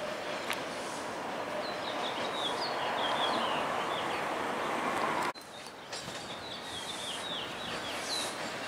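TTC T-1 subway train running on outdoor track, a steady rumbling hiss, with a songbird singing short repeated chirps over it. About five seconds in the sound drops suddenly, and quieter train noise carries on with more chirps as another T-1 train approaches.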